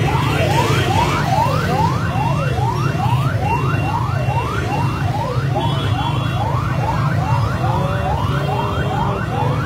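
Ambulance siren sounding a fast yelp: rising sweeps repeating about two to three times a second, over a steady low rumble of crowd and traffic.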